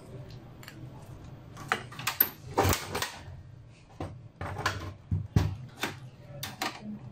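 Irregular clicks and knocks of hands working inside a Dell desktop's metal case, pulling plastic power-supply cable connectors off the motherboard, over a faint low hum.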